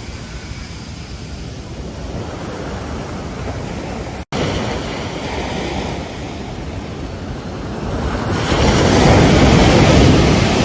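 Ocean surf breaking on a beach: a steady wash of waves, cut by a split-second dropout about four seconds in, then a wave breaking and swelling loudest near the end.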